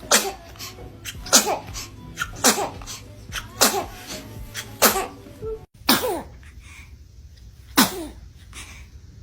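Newborn babies sneezing: seven short, sharp little sneezes about a second apart, the last after a slightly longer pause.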